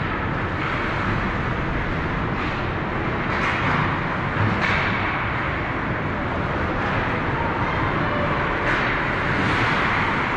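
Ice-rink noise during a youth hockey game: a steady wash of sound with a few brighter scrapes of skates on the ice.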